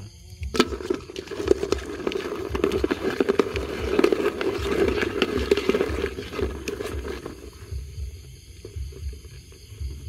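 A white plastic bucket being handled: a sharp knock against it about half a second in, then uneven rattling and scraping for about seven seconds before it quietens.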